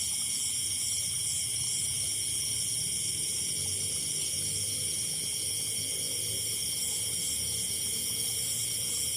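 A night chorus of insects, crickets among them, chirring steadily in several high-pitched layers without a break.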